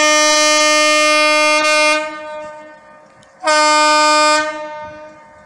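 Meter gauge diesel locomotive's horn sounding twice: a long blast of about two seconds, then a shorter blast of about a second.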